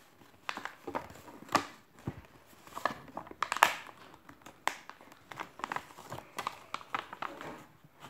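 Origami paper being folded and creased by hand, with irregular crinkling and sharp paper crackles. The loudest crackle comes a little past halfway.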